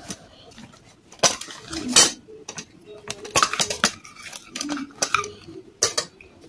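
Hands squeezing and mashing wet white clay paste in a stainless steel bowl, with irregular wet squelches and sharp scrapes and clinks against the metal.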